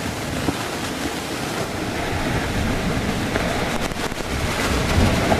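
Mount Yasur volcano erupting: a continuous rushing roar of ash and gas blasting from the vent, mixed with wind on the microphone, growing slightly louder toward the end.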